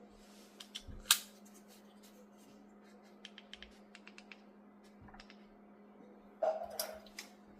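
Small plastic clicks and ticks from a car key fob being handled and pried open for a battery change: one sharp click about a second in, a quick run of small ticks a couple of seconds later, and a louder scraping rattle near the end.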